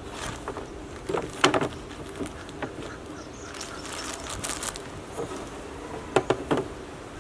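Cardboard jigsaw puzzle pieces being handled and dropped into plastic sorting trays: small clusters of light clicks and knocks, loudest about a second and a half in and again near the end, over a steady background hiss.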